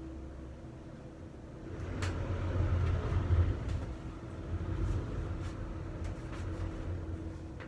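Road traffic heard from above: a low rumble of passing vehicles that swells about two seconds in and eases off, over a steady low hum, with a sharp click about two seconds in.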